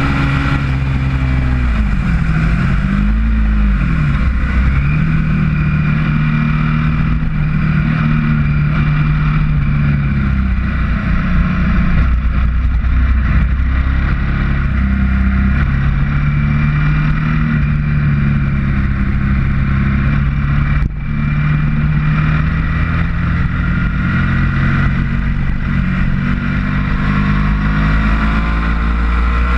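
Ducati motorcycle engine at high revs under hard riding, with wind rushing past the bike. Its pitch falls and climbs again a few seconds in as the revs change through a corner, holds steady for long stretches, and dips briefly with a drop in level about twenty seconds in.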